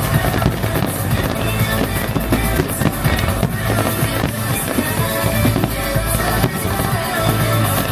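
Aerial fireworks bursting with many short bangs and crackles, over loud music from the show's soundtrack.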